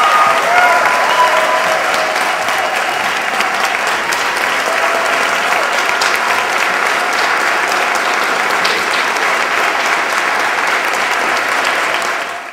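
Audience applauding, with a few shouts from the crowd in the first second; the applause cuts off abruptly near the end.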